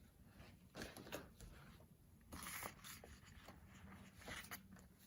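Faint rustling of paper sticker sheets being handled, in three short rustles: about a second in, around two and a half seconds, and near the end.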